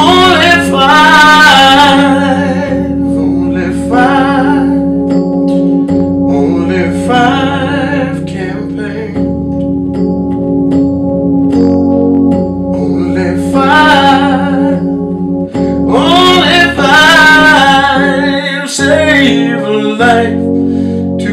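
A slow song: a man singing drawn-out phrases with vibrato over sustained keyboard chords and a bass line.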